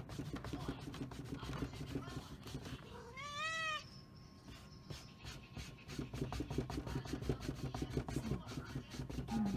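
A domestic cat chewing and tearing at a cardboard cereal box: a rapid, uneven run of crunching, crackling clicks. One meow about three seconds in rises and falls in pitch.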